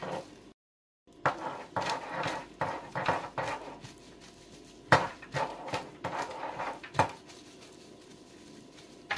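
Plastic cling film crinkling and rustling as hands squeeze and shape a wrapped mound of salad, with a few sharp knocks, the loudest about five and seven seconds in.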